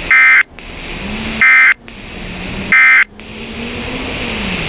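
Three short, loud bursts of buzzy digital data tones (SAME alert codes) on a weather radio broadcast, about a second and a half apart, with radio hiss between them.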